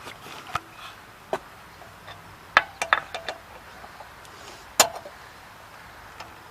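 Sharp metallic clinks and knocks of a lug wrench working the lug nuts on a spare wheel, a few scattered strikes with a quick cluster near the middle and the loudest single strike a little later.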